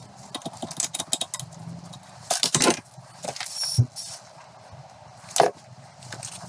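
Small metal clinks and taps as a Mini top suspension arm is handled in a bench vice, with short hissing sprays from a hand-pump spray bottle, the loudest about two and a half seconds in and again about five seconds in, as the arm is cleaned.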